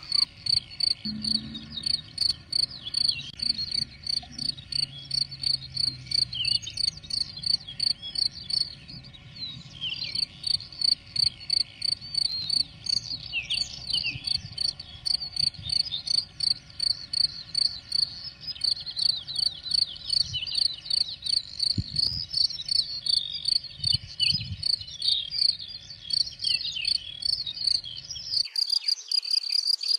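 A cricket chirping steadily, a high, even pulsed note about three to four times a second, with songbirds singing over it.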